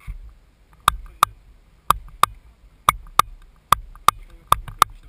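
Paintball marker firing ten sharp shots, in five quick pairs about a second apart.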